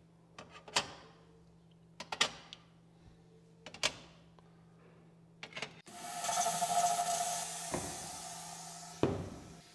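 Several light knocks and clicks as flashlights are set into the rack of a salt spray test chamber, then from about six seconds in the chamber's nozzle hissing as it sprays mist, with a steady whistle-like tone under the hiss, slowly fading; one more knock near the end.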